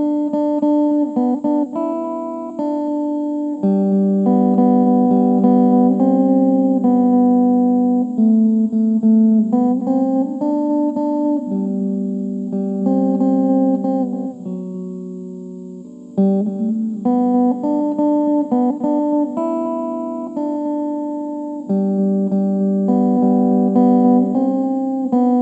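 Instrumental background music with plucked notes and chords, fading briefly about two-thirds of the way through before picking up again.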